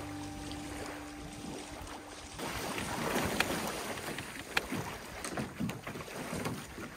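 Small waves lapping at a sandy shore, then wind on the microphone and water splashing around someone wading in shallow water beside canoes, with a few sharp knocks.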